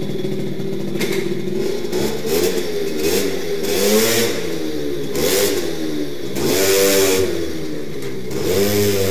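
Small 50cc two-stroke moped engine with an Airsal T6 cylinder, Doppler head and Giannelli exhaust, just started and running, revved up and let fall back in short blips about five times.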